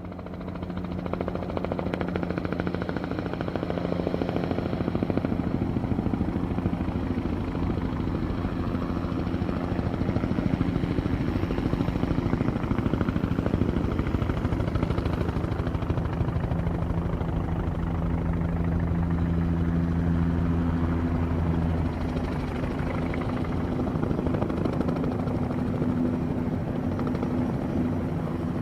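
Helicopter running, with a rapid steady rotor beat under a constant engine hum; the hum shifts in pitch about two-thirds of the way through.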